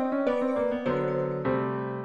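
Computer MIDI playback of a piano-and-synthesizer score from notation software: quick runs of keyboard notes over held lower notes.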